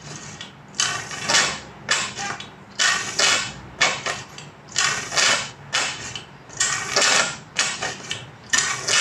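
Motorcycle front fork damper rod, from Triumph Daytona 955i forks, pumped up and down by hand inside the fork tube to work fresh fork oil through the damper. Each stroke gives a short squelching, hissing noise, about two strokes a second.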